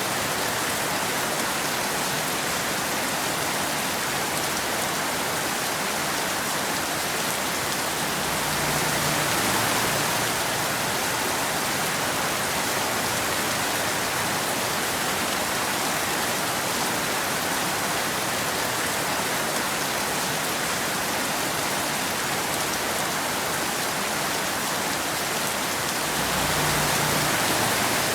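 Steady rain falling, an even, dense hiss of drops. A brief low swell rises under it about a third of the way in and again near the end.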